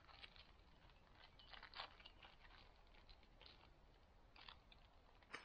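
Near silence, with faint, scattered crackles of dry brush and twigs.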